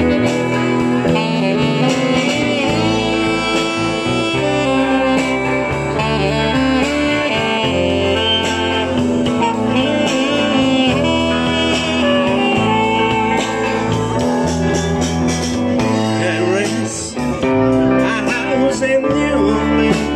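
Amplified live band jam in a blues-rock style: electric guitar, electric bass and a drum kit playing together, with a lead melody that bends and holds over the chords.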